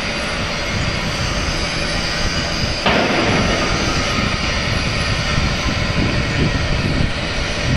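Steady running noise of hydraulic crane machinery, as from the brick loader's hydraulic pump and motor. It steps up suddenly and gets rougher about three seconds in while the brick grabber is being worked.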